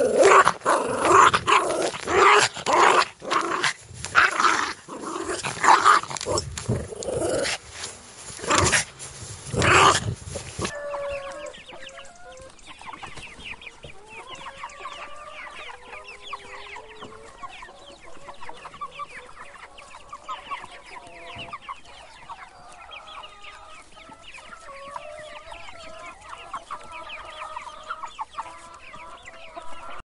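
A small terrier tugging at a frisbee, its sounds coming in loud choppy bursts until they break off suddenly about eleven seconds in. Then a brood of chicks peeping in a constant stream of short rising chirps, with a hen clucking under them.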